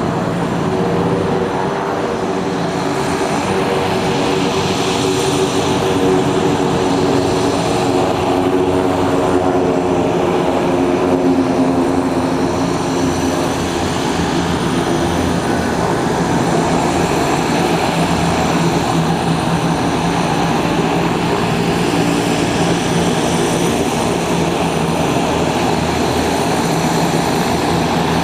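Propeller-driven military trainer aircraft flying an aerobatic display, its engine droning steadily with the pitch drifting slowly lower over the first half.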